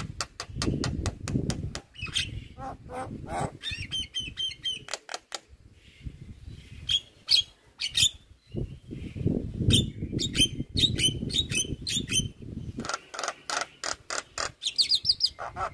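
Javan myna calling: a rapid stream of sharp clicks, harsh rasping chatter and short high whistled notes, with brief pauses between phrases.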